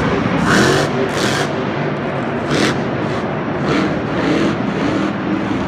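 Monster truck's V8 engine revving in a string of short throttle bursts, six or seven in all, over a steady engine drone.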